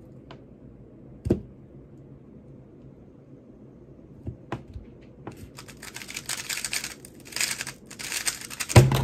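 A 3x3 speedcube (Mystic WR M) being turned at full speed: a dense, rapid run of clicking and clacking layer turns lasting about three and a half seconds, the whole of a 3.42-second solve. A few single clicks of handling come before it, and a thump ends it.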